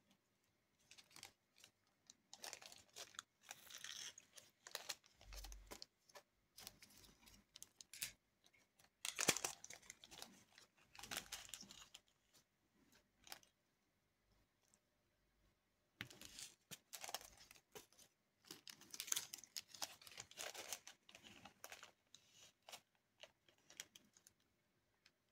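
Faint crinkling and rustling of plastic in irregular bursts as diamond-painting materials are handled. It comes in three spells, with quiet gaps between.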